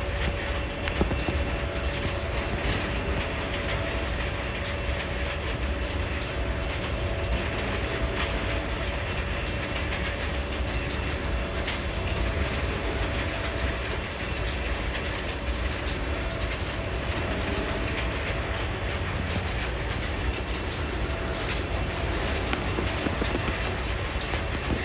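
Freight train's boxcars rolling past in a steady rumble, with scattered clicks of the wheels over the rail joints and a faint steady whine held above it.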